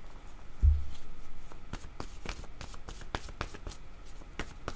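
A deck of cards being shuffled by hand: a dull low thump about half a second in, then a quick run of soft card clicks and slaps from about a second and a half in.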